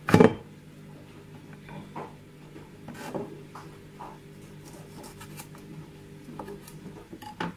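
A kitchen knife cutting a lime in half on a plastic cutting board: one loud knock on the board at the start, then scattered soft taps and scrapes as the blade works through the fruit, over a steady low hum.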